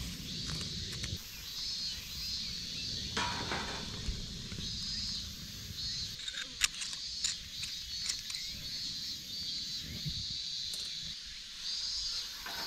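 Insects chirping in repeated pulses, about one a second, with scattered clicks and rustles from tinder and cedar twigs being handled; the sharpest click comes near the middle.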